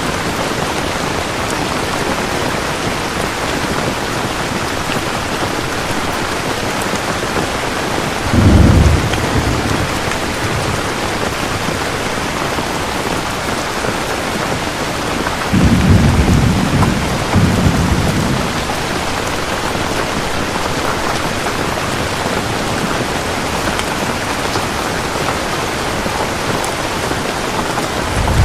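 Steady falling rain, with low rumbles of thunder twice: a short one about a third of the way in and a longer one in two swells past the middle.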